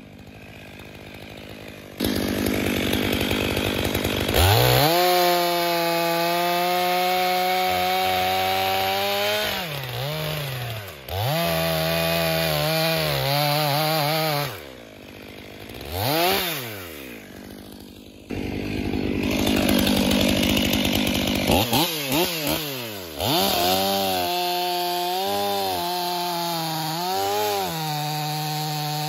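Stihl MS 500i fuel-injected two-stroke chainsaw bucking logs: it revs up and holds high under load through several cuts, dropping back to idle between them, with a few quick blips of the throttle.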